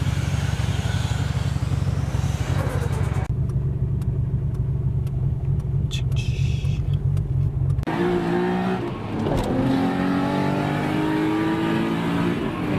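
Turbocharged Nissan Skyline straight-six running with a steady low drone, sounding muffled for a few seconds in the middle. About eight seconds in the sound changes abruptly and the engine revs up, its pitch climbing as the car accelerates.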